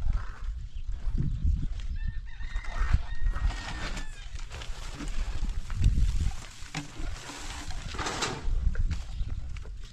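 A rooster crowing: one long, drawn-out call about two seconds in, over a steady low rumble.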